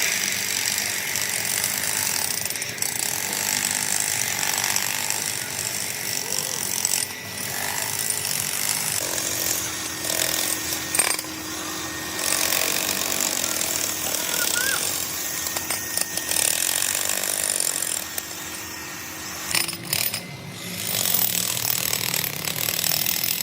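Metalworking machinery running with a dense, rapid rattle, in the work of cutting a large steel gear, with a steady low hum for a while in the middle.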